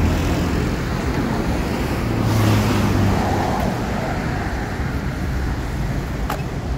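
Street traffic: cars driving past on a city road, a steady rumble with one vehicle passing louder about two seconds in.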